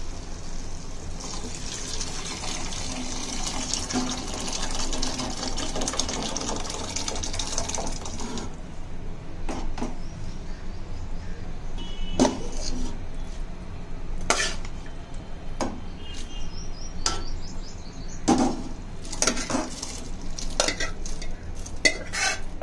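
Boiled sprouted pulses with their cooking water poured into a pot of hot masala, a splashing hiss lasting about seven seconds. Then metal utensils clink and knock against the pot every second or two, some strikes ringing briefly.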